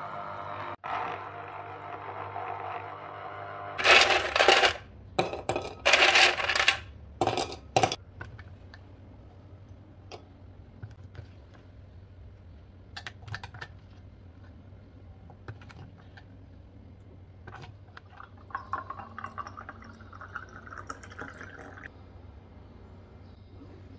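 Kitchen sounds at an electric citrus juicer and a glass of ice: soft background music at first, then several loud noisy bursts about four to eight seconds in, followed by light clinks and scraping as a spoon works juice and pulp into a glass of ice cubes.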